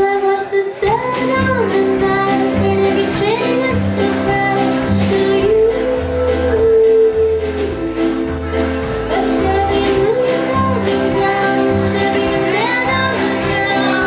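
Live acoustic band music: a woman singing a melody over strummed acoustic guitar, plucked upright bass, accordion and a small drum kit with snare and cymbal keeping a steady beat.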